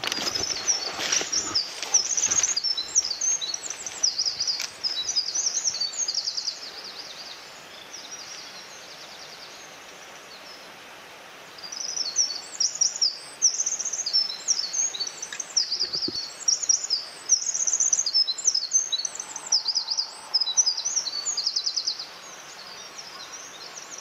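Small songbird singing a long, rapid, jumbled song of high chirps and trills, in two long runs with a quiet gap of a few seconds between them. A few faint rustles of undergrowth near the start.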